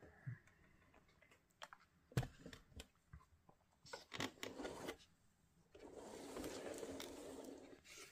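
Faint handling noise: scattered small clicks and taps, then a soft rustle for about two seconds from about six seconds in.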